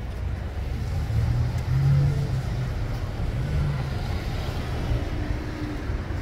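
Road traffic: a car going by, a low rumble that swells about a second or two in.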